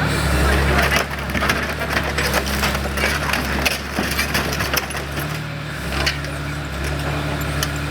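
Opel Corsa being crushed under a 22-tonne O&K RH6 crawler excavator: repeated cracking and crunching of car body and glass over the steady drone of the excavator's diesel engine.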